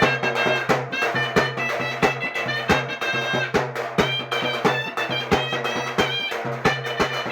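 Instrumental music: a steady drum beat over a low held drone, with a high reedy wind-instrument melody.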